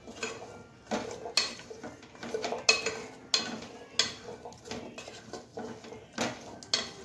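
A wooden spatula stirring and turning sweet potato slices in a nonstick pot, knocking and scraping against the pot in about ten irregular clacks.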